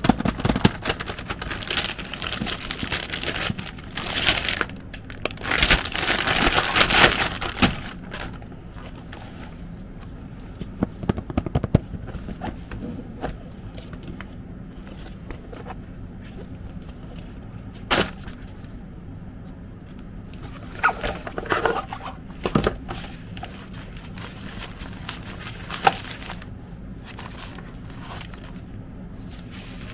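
Packaging being handled and opened: dense crinkling and rustling for the first several seconds, then quieter handling with scattered sharp clicks and taps, one clear click about 18 seconds in.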